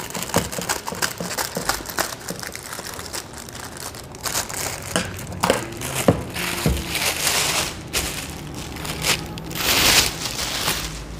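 Clear plastic packaging bag crinkling and rustling as it is cut open and pulled off an air rifle, with the loudest rustles near the end.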